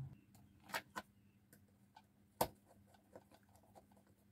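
A few faint, scattered clicks and taps from a wire being fitted into the screw terminal of a W1209 thermostat relay board and a small screwdriver being set to it; the sharpest click comes about halfway through.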